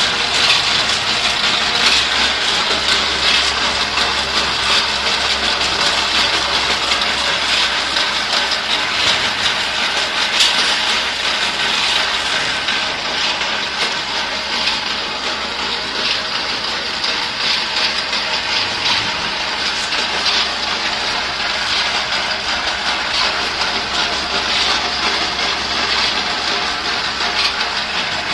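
Paper edge protector (corner board) machine running: a steady mechanical hum and rattle with frequent small clicks.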